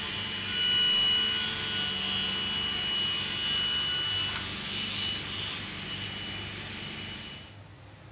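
Table saw with a wood-cutting blade running and crosscutting a plywood tabletop in a crosscut sled, a steady whine of motor and blade. The sound drops away abruptly about seven and a half seconds in.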